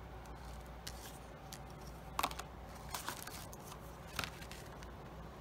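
Small souvenirs handled on a table: a few short clicks and rustles of a plastic box and paper cards being picked up and set down, the loudest a little past two seconds in, over a faint low hum.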